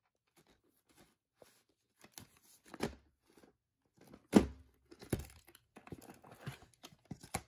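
Plastic clamshell VHS case being handled: rustling, crinkling and light tapping, with two loud clicks a little over halfway through as the case is opened.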